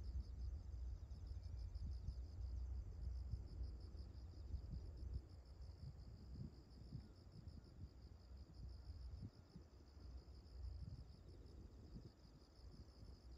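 Faint crickets chirping in a steady, rapidly pulsing trill, over a low, uneven rumble that eases about five seconds in.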